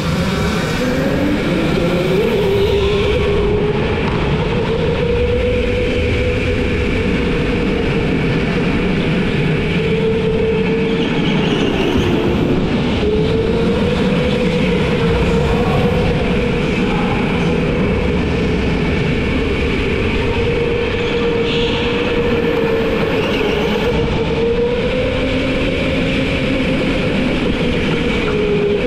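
Go-kart engine running hard. Its pitch climbs over the first couple of seconds as the kart accelerates, then stays high with a few brief dips and recoveries, the deepest about 12 seconds in and again near the end.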